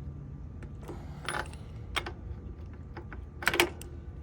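A few separate light metallic clicks and clinks of hand tools against steel, the loudest cluster near the end, as riser studs are tightened into a motorcycle springer fork.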